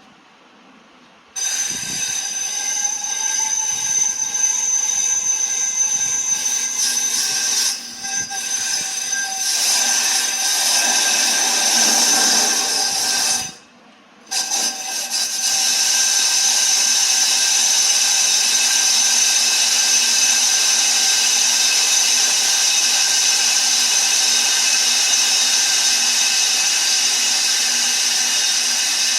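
Brake disc being resurfaced by a machine: a loud, steady metallic whine with shrill high tones from the cutting. It starts about a second and a half in, stops briefly near the middle, then resumes and runs steadily.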